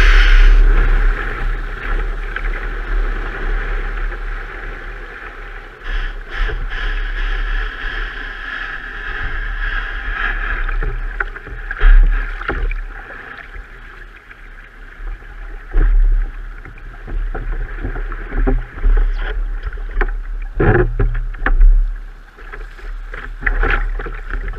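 Surf rushing and splashing around a sea kayak's hull, heard close up from a camera on its deck: loudest at the very start as the broken wave carries the boat, then a steadier wash with a low rumble of wind on the microphone, and sharp splashes and knocks now and then.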